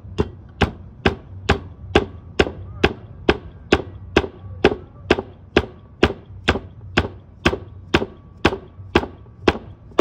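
Mallet blows driving a needle bearing into the swing arm pivot of a 1976 Yamaha RD400: steady, even strikes a little over two a second, about twenty in all.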